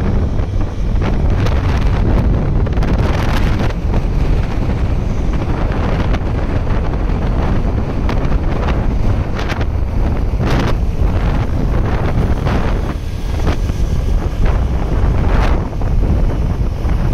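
Wind rushing over the microphone of a motorcycle riding at speed: a loud, steady rumble with frequent gusty surges.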